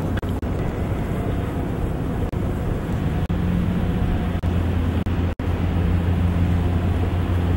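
Steady low engine drone over wind and water noise, growing louder about three seconds in. The sound cuts out for an instant just past five seconds in.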